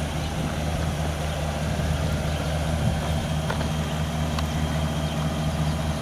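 A Chevrolet Silverado HD pickup's engine idling with a steady low hum.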